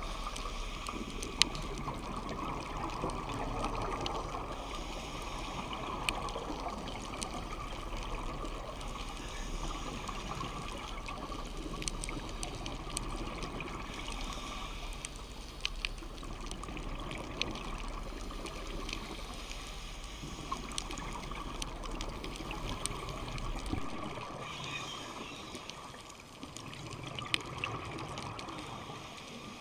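Underwater ambience picked up by a diver's camera on a scuba dive: a steady rushing water noise with scattered faint clicks. A low hum stops about three-quarters of the way through.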